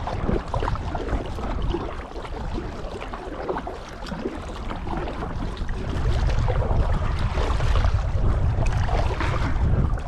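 Wind buffeting the microphone over the splash and drip of kayak paddle strokes in the water. The wind eases for a few seconds in the middle, then picks up again about six seconds in.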